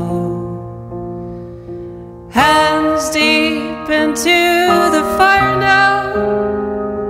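Grand piano chords ringing and slowly fading, then about two and a half seconds in a voice comes in singing with vibrato over new piano chords.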